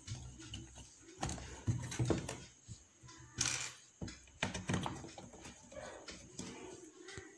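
Scattered faint knocks, taps and scrapes of hands handling and pressing a plastic-fronted switchboard panel and its switch and socket plates as it is fitted shut, with one sharper scrape about three and a half seconds in.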